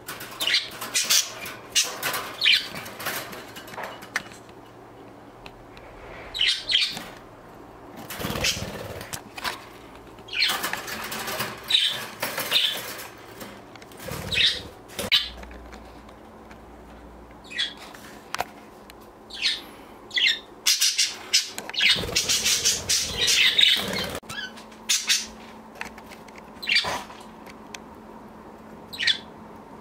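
Budgerigars fluttering their wings in short flights and chirping, in many short irregular bursts.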